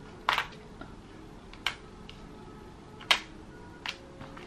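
Four short, sharp crackles at uneven intervals as a thin plastic peel-and-stick tile sheet is handled and pressed onto a painted wall.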